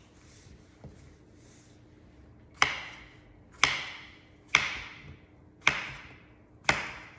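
Kitchen knife chopping potatoes on a wooden cutting board: five sharp knocks about a second apart, starting some two and a half seconds in.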